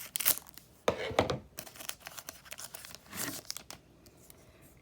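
A foil trading-card pack wrapper being torn open and crinkled in several short rough bursts, opening the next pack of football cards.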